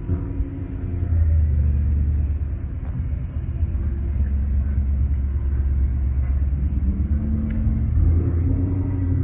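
A car engine idling: a steady low rumble with a faint hum above it.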